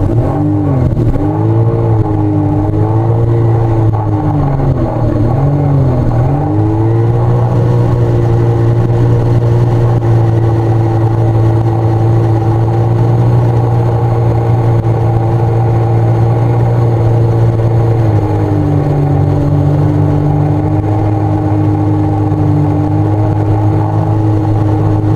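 Sea-Doo personal watercraft engine running under way, its pitch wavering up and down with the throttle for the first few seconds, then holding steady at cruising speed. About two-thirds of the way through the pitch drops slightly and settles again.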